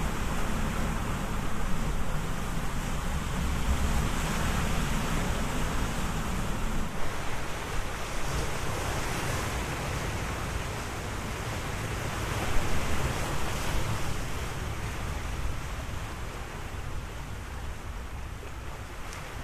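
A steady, surf-like rushing noise with no tune or beat, heavier in the low end at first and easing off toward the end.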